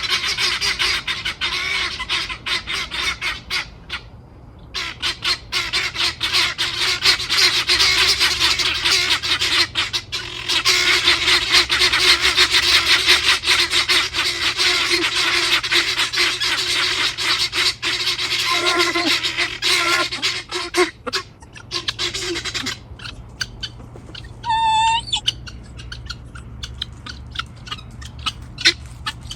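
Helmeted guineafowl calling: harsh, rapid, repeated cackling that is loud and nearly continuous, breaks briefly about four seconds in, and thins out to scattered calls after about 23 seconds. One short, clear, pitched call comes near the end.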